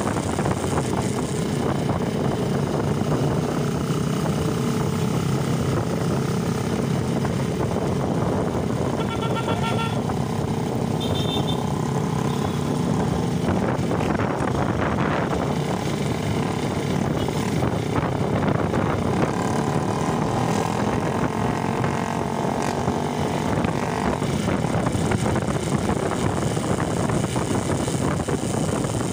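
Motorcycle engines running steadily on the road, with a few short high beeps about nine and eleven seconds in.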